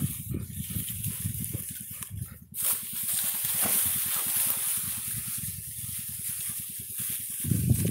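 Dogs sniffing and snuffling at the ground for field mice in dry rice stubble, then a steady, hissy rustle of the dry stalks from about two and a half seconds in as a dog pushes through them.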